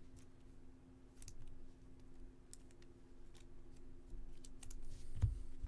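Light scattered clicks and rustles of trading cards and packs being handled, with a soft thump about five seconds in, over a steady low hum.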